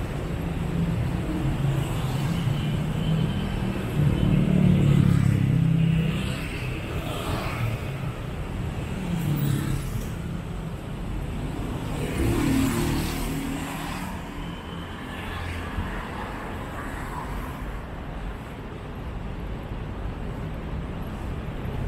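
City street traffic: motor vehicles passing close by over a steady background rumble, the loudest one about four to six seconds in and another around twelve seconds in.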